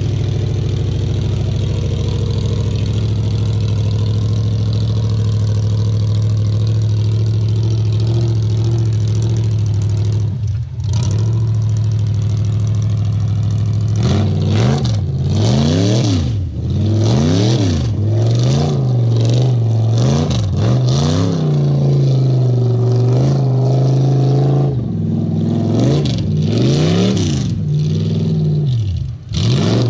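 Jeep Wrangler YJ's swapped 6.0-litre LS V8 with headers, working through deep water: the engine holds a steady note for the first half, then is revved up and down over and over from about halfway on.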